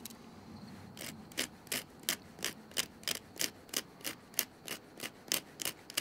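Cinnamon stick being grated on the steel wood-saw blade of a Victorinox Huntsman pocket knife: short, even rasping strokes, about three a second, starting about a second in.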